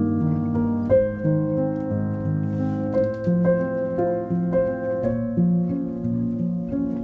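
Background music: a melody of plucked notes over lower held notes.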